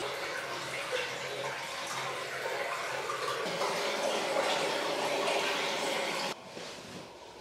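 Water running from a tap into a bathtub that is filling, a steady rushing splash that cuts off suddenly near the end.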